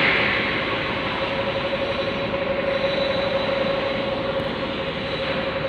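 Heavy machinery running steadily, a broad engine-like noise with a constant mid-pitched whine through it.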